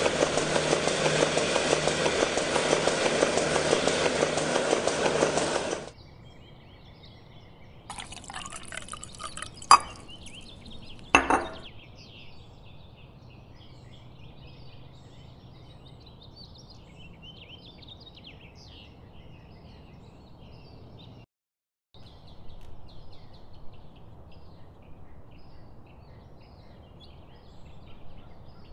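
A milking machine running loud and steady for the first six seconds. Then milk poured into a glass, with a few sharp glass clinks. Faint bird chirps over a quiet rural background follow to the end.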